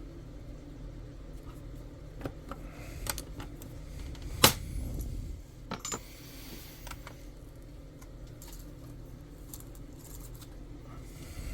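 Small metal parts and tools being handled on a soldering bench: scattered light clicks and clinks, with one sharp metallic click about four and a half seconds in, over a low steady hum.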